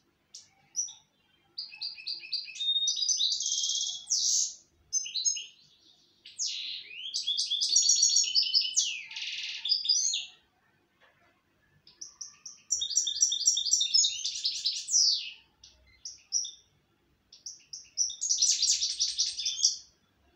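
Caged European goldfinch singing: long phrases of rapid, twittering high notes in quick runs, four bursts of song separated by short pauses.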